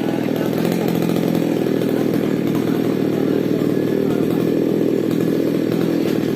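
Falcon mini chainsaw running steadily at an even pitch while cutting into a mango tree.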